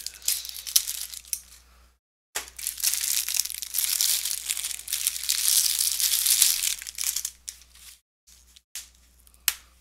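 Clear plastic bag crinkling and crackling as it is pulled open and an oven mitt is worked out of it. It is heaviest in the middle and dies down about seven seconds in, with one sharp click near the end.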